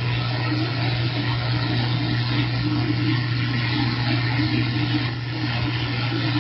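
CB radio speaker giving out a steady rushing hiss with a strong, even low hum underneath, the sound of an open carrier on the channel with no voice on it.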